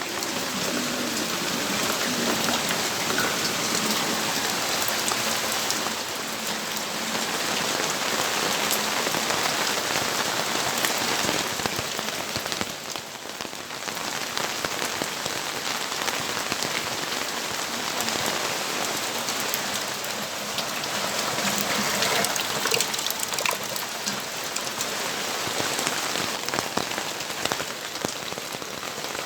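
Steady rainfall, a dense even hiss with many individual drops ticking on nearby surfaces.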